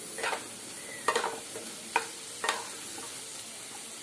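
Wooden spatula stirring fried potato cubes in a non-stick kadhai, knocking against the pan four times over a faint sizzle of oil.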